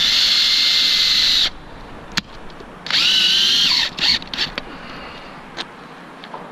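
Power drill driving mounting screws into the roof without a pilot hole: two steady runs with a high motor whine, the first about a second and a half long at the start and the second about a second long a little past the middle, each cutting off sharply. A few clicks and knocks follow.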